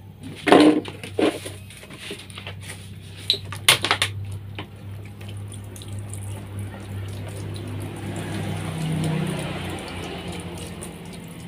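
A few sharp knocks and clinks in the first four seconds, then a steady rush like running water or spray that grows louder about eight to nine seconds in, over a low steady hum.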